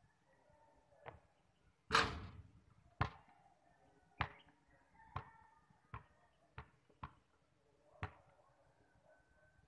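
A basketball on a concrete court. About two seconds in, a shot hits the hoop with a loud ringing clang. The ball then bounces on the concrete, the bounces coming quicker and quicker as it settles, and a single bounce follows near the end.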